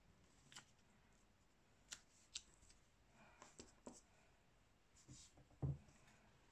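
Faint paper handling: fingers pressing and smoothing torn paper pieces onto a paper sheet, with scattered small clicks and rustles and a soft thump near the end.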